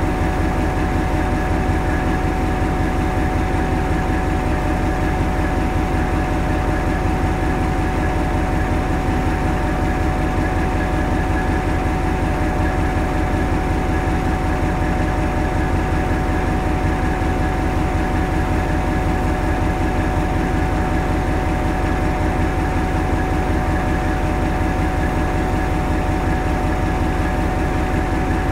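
Hastings DEMU's English Electric four-cylinder diesel engine running steadily, heard from the driving cab, with a low rhythmic beat and a constant whine over it.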